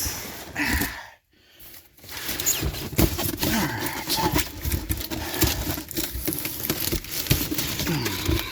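Cardboard shipping box and its packing being handled and pulled open: crinkling, scraping and repeated knocks, with a brief drop to near silence a little after a second in.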